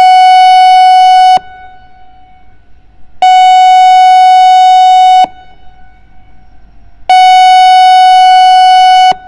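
ASC I-Force 1600 electronic outdoor warning siren sounding its pulse tone: a loud, steady, high tone that switches abruptly on and off, about two seconds on and two seconds off, three times (the first already sounding at the start). A faint trace of the tone hangs on in the gaps.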